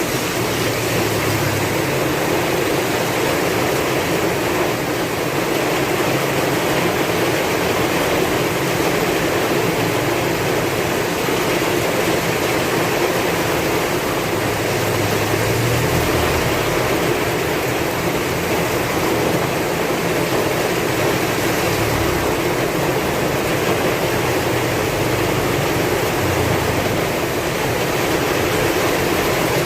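Heavy rain falling steadily, a dense even hiss, with strong wind adding a low rumble that swells and fades every few seconds.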